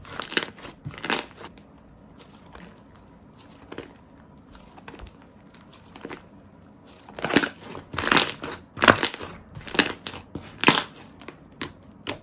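Hands squishing and pressing slime, giving crackling, crunching squishes: a few in the first second, a quieter stretch of faint crackle, then a run of about six louder squishes later on.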